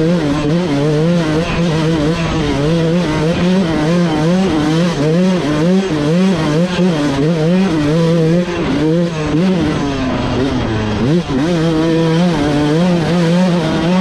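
Dirt bike engine being ridden along a trail, its pitch rising and falling over and over as the throttle is worked, with a deeper drop and climb about ten seconds in.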